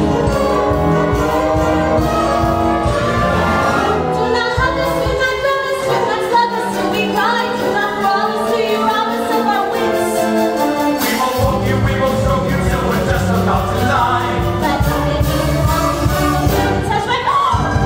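Musical-theatre number: several voices singing together over instrumental accompaniment. The bass drops out for several seconds midway, then comes back in.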